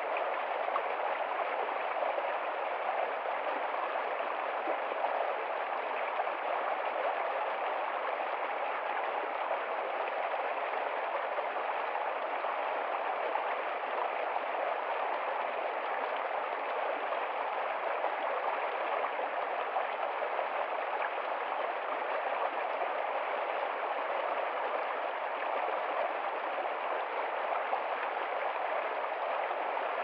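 Small rocky stream flowing fast over stones: a steady rush and splash of water that never changes.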